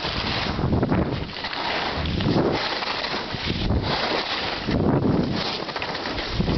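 Wind rushing over the microphone of a moving skier's camera, with skis scraping over the snow in surges that swell and fade with the turns.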